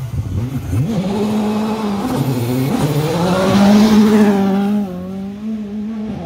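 Rally car speeding past on a gravel stage, engine revving with its pitch stepping up and down through the gears. It is loudest as it passes close about four seconds in, with a rush of tyre and gravel noise, then its pitch falls as it pulls away.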